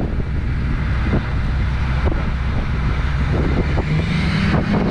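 Steady low vehicle rumble with a constant hiss over it, and a few faint knocks.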